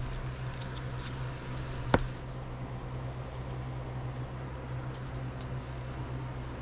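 Quiet handling of a trading card and a clear plastic card holder over a low steady hum, with one sharp click about two seconds in.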